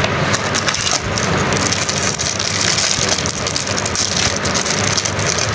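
Crinkling and tearing of a piston ring set's wrapping as it is opened by hand, a dense run of small crackles.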